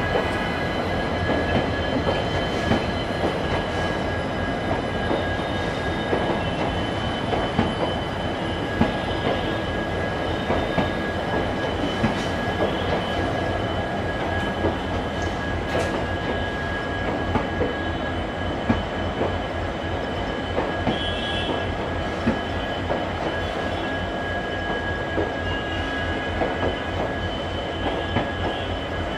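Passenger coaches of an express train rolling past, wheels knocking over the rail joints again and again under a steady rumble, with a thin steady high whine over it.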